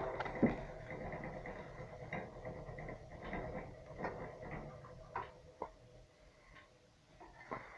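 Homemade steel wood-burning sauna stove with its ash-pit draft closed, drawing air through the slots in its door. It makes a steady hum with a faint whistle that fades away toward the end, with a few sharp crackles from the fire.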